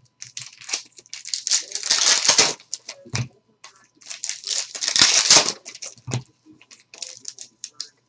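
Foil trading-card packs being ripped open by hand: two long crinkling tears about three seconds apart, with shorter wrapper rustles between them.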